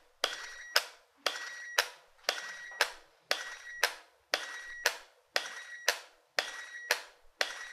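MPGUN mesotherapy injector gun firing into the cheek: sharp mechanical clicks about two a second, grouped in pairs about once a second, with a faint high whine between the two clicks of each pair. Each pair is one automatic needle injection.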